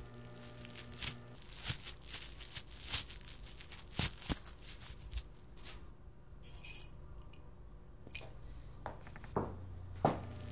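A scattered series of sharp clicks, taps and knocks with a brief metallic clink in the middle. A low steady machine hum cuts out after about a second and a half and comes back near the end.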